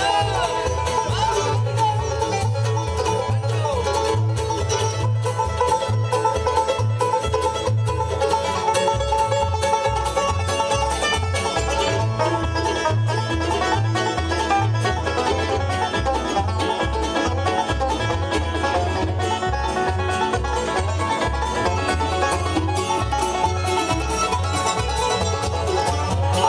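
Live bluegrass band playing at a lively pace: five-string banjo, fiddle, mandolin and acoustic guitar over an upright bass whose notes change about twice a second.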